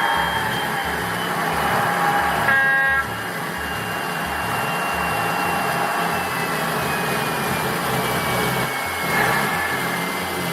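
Recorded HST diesel power car sound played by a Zimo DCC sound decoder through the model's small speakers, run at full throttle: steady engine noise with a high whine that slowly falls in pitch, and a short horn blast about two and a half seconds in.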